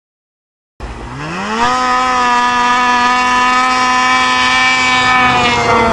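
Snowmobile engine coming in suddenly about a second in, its pitch rising quickly as it accelerates, then holding steady at high revs as a loud, even whine.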